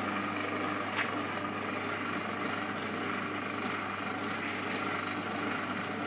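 Enerpat CWS40G wire stripping machine's 750 W single-phase motor and gear reducer running steadily with a hum, one short click about a second in.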